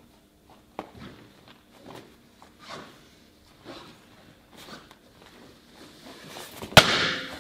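Bare feet shuffling and bouncing on a foam mat, then a quick run-up and one sharp, loud crack near the end as a side kick slams into a stack of coloured breaking boards clamped in a rack.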